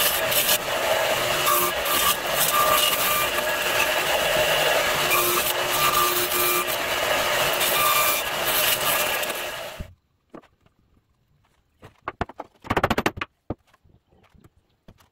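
Craftsman radial arm saw running and cutting through pine 2x4 lumber, a steady motor whine under the noise of the blade in the wood. The sound cuts off suddenly about ten seconds in, followed by a few light knocks and one brief burst of noise.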